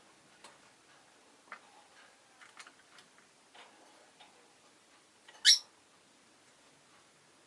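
Rosy-faced lovebird giving one loud, brief, high-pitched chirp about five and a half seconds in, among a scattering of soft clicks and ticks.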